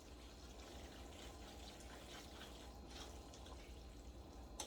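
Near silence: faint kitchen room tone with a steady low hum.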